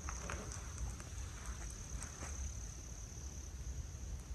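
Crickets trilling: one continuous, steady high-pitched insect trill, with scattered soft crunches of footsteps on a sandy, leaf-littered trail and a constant low rumble underneath.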